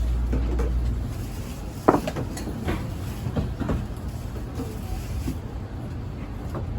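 Inside a Tokaido Shinkansen car: a low running rumble that eases off about a second in, then a run of knocks and clicks, the loudest about two seconds in.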